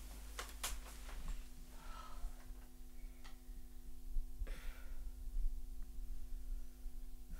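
A woman breathing heavily, with gasps about two seconds and four and a half seconds in, over a steady low hum. There are two sharp clicks about half a second in.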